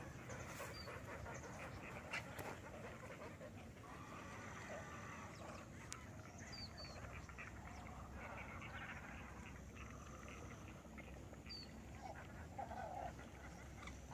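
Faint wetland bird chorus: mixed distant bird calls, with a few short, high, falling chirps from a small bird scattered through it.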